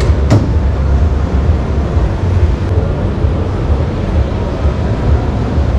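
Steady, loud low rumble with a noisy haze above it, and one sharp click about a third of a second in.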